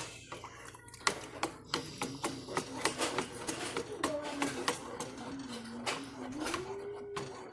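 A spoon stirring tea in a cup, clinking against the sides in quick, irregular ticks.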